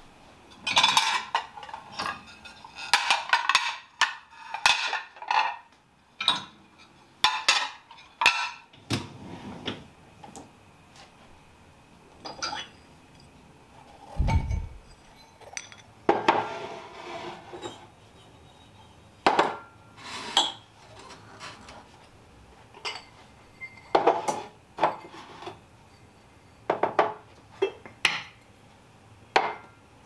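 Dishes, cutlery and drinking glasses clinking and knocking as they are lifted out of a dishwasher rack and set down on cupboard shelves, in sharp, irregular knocks. The knocks come thickest in the first third, and there is one dull thump about halfway through.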